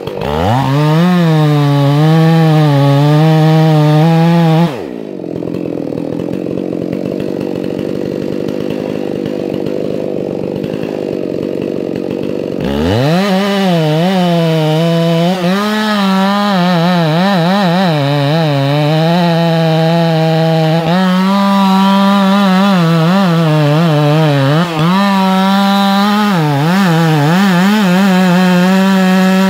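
Chainsaw running at full throttle with its pitch wavering and dipping as it works through wood. It drops to idle about five seconds in, then revs back up after about eight seconds and cuts again at full throttle, its pitch bogging and recovering.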